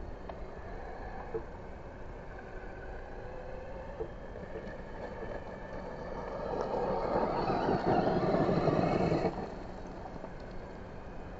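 Losi Promoto RC dirt bike's electric motor whining as it rides, with its pitch sliding up and down. About six and a half seconds in it grows louder for about three seconds as the bike passes close, its spinning rear tyre spraying gravel, then it drops back.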